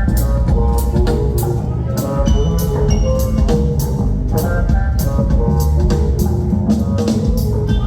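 Band playing live in an instrumental passage with no vocals: a drum kit keeps a steady, even beat over a heavy low bass line, with short repeated melodic notes on top.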